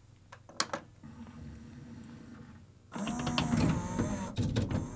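Pioneer CLD-M301 LaserDisc player powering on: clicks as the power button is pressed, a low hum, then about three seconds in the machine's mechanism starts whirring and clattering as it initializes, the motor's pitch wavering.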